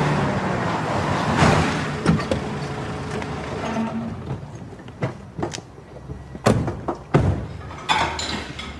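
A car drives up and slows to a stop, with engine and tyre noise swelling and then fading. A few short, sharp knocks follow.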